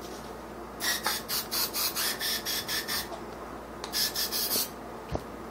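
Gun-cleaning handling noise: quick, scratchy strokes about five a second, in a two-second run and a shorter one about four seconds in, from working a bore brush and an aerosol cleaner can on a Glock 26.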